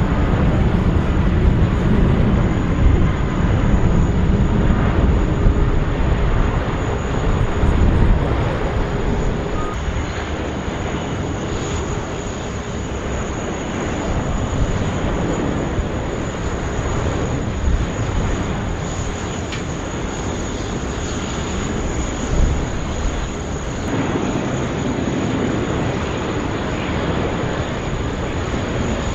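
Jet airliners on landing approach passing close by: continuous engine noise with a thin, steady high whine, loudest over the first ten seconds and then a little softer.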